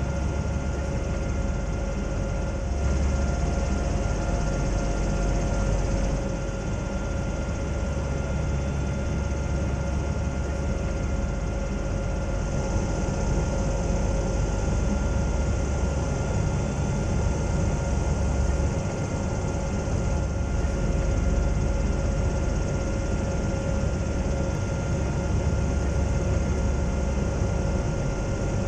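Zeppelin NT airship's engines and propellers droning steadily, heard from inside the passenger gondola, with a few constant tones over a wide rushing noise.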